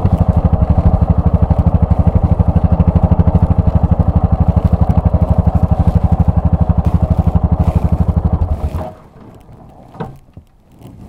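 Yamaha XT660R's single-cylinder engine running steadily with an even, rapid beat. The sound stops abruptly about nine seconds in, and after that there is only a faint sound with one short knock.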